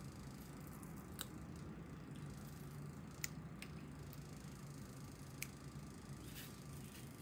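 A few sharp, small plastic clicks as a USB modem stick and its Type-C connector adapter are handled and worked at in the fingers, over a faint steady hum.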